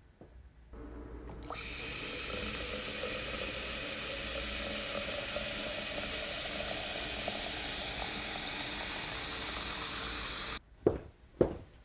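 Water running steadily from a tap into a bucket, a constant rush that starts about a second and a half in and cuts off suddenly near the end.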